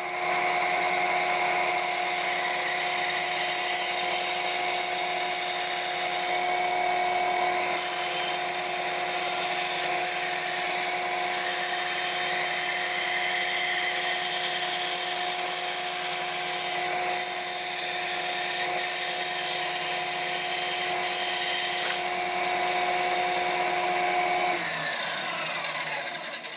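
A power tool motor running at speed with a steady high whine, then switched off about a second and a half before the end and spinning down with falling pitch.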